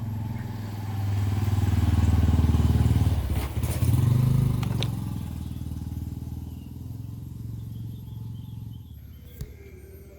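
A motor engine's rumble that builds over the first couple of seconds and then slowly fades away, like a motorcycle or similar vehicle passing. A faint click comes near the end.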